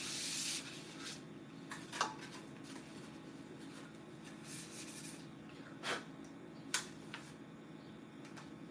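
Household items being handled during cleaning: rustling and rubbing, with a brief hiss at the start and a few sharp knocks, over a steady low hum.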